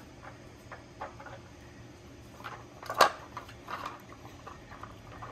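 Dogs nosing and pawing at plastic treat-puzzle feeders: faint scattered clicks and rattles of plastic pieces, with one sharp clack about three seconds in.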